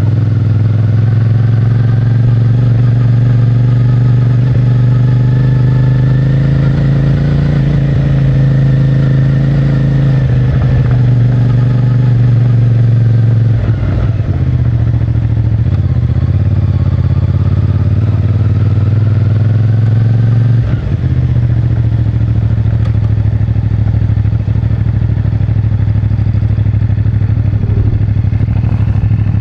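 CFMOTO 450MT's parallel-twin engine running under way, its pitch climbing slowly as the bike gathers speed. It dips briefly and settles lower twice, about halfway through and again about two-thirds of the way in, as the rider changes gear.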